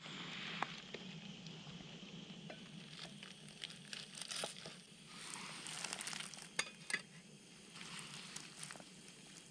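SOTO G-Stove gas burner running with a steady hiss while cookware is handled on it: a metal mess tin is lifted off and a pot set down on the burner, with scattered light metal clinks and knocks.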